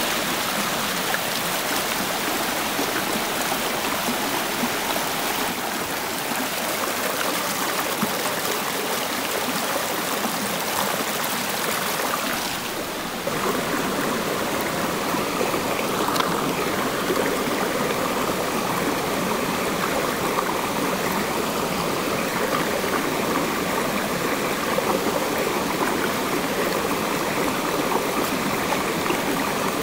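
Steady rush of a rocky mountain stream flowing over boulders. The sound dips briefly about halfway through, then carries on.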